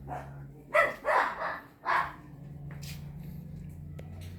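A dog barking several times in quick succession during the first two seconds, over a steady low hum.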